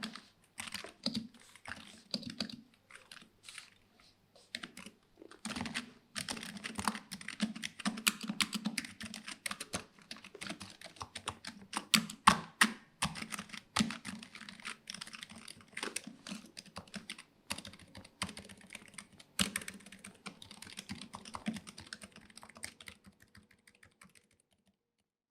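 Typing on a Razer Huntsman V2 keyboard with linear optical red switches and doubleshot PBT keycaps, foam-dampened inside: scattered keystrokes at first, then fast continuous typing from about five seconds in, stopping shortly before the end.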